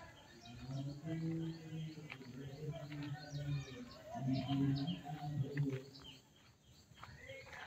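Small birds chirping in many short calls. Underneath are two long, low, steady sounds, the second starting about four seconds in.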